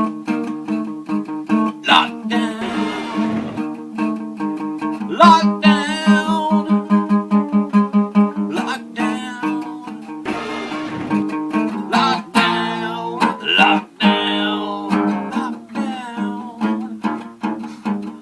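Intro music: acoustic guitar playing plucked, strummed notes, with a singing voice in places.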